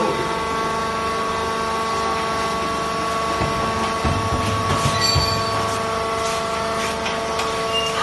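Vertical hydraulic baler's power unit running with a steady whine of several held tones. A few low thuds and rattles come between about three and a half and five seconds in.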